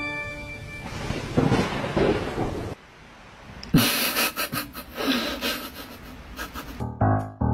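Two cats scuffling, a grey cat batting at a white long-haired cat, with sudden noisy crackles and a couple of short cat cries. Organ music stops within the first second, and piano music starts near the end.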